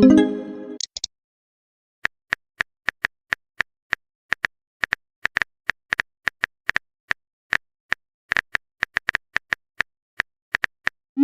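Typing sound effect: a run of sharp, irregular keyboard-style clicks, a few per second, like text being typed out. It opens with a short pitched pop-like tone lasting under a second.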